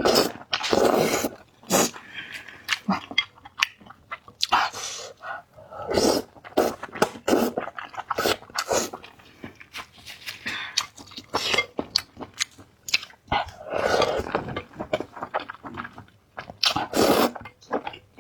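Close-miked eating: wet slurps and chewing noises come again and again at an irregular pace, some short and some drawn out over a second.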